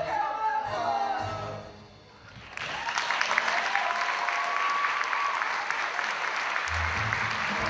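Show music with pitched lines fading out about two seconds in, then audience applause starting suddenly and clapping steadily through the rest.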